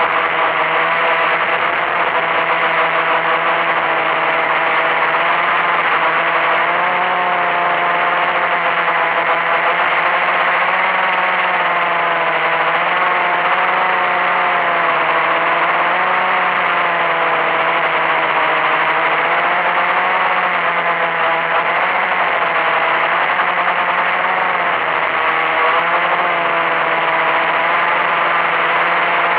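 Small electric motors and propellers of an RC craft running continuously, a steady whirring hum whose pitch wavers slowly up and down as the throttle shifts.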